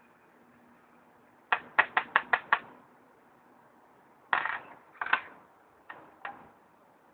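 Detached metal end piece of a Pioneer HDJ-2000 headphone headband clicking and knocking against a hard tabletop as it is handled. A quick run of six sharp clicks comes first, then two louder knocks and two lighter clicks.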